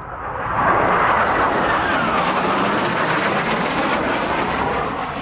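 Jet aircraft flying past: the engine rush swells in over about a second, and its whine falls in pitch as the jet goes by.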